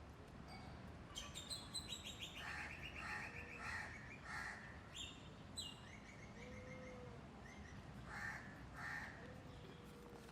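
Crows cawing in short, harsh calls, several in a quick run and a pair more near the end, with higher chirps from smaller birds among them.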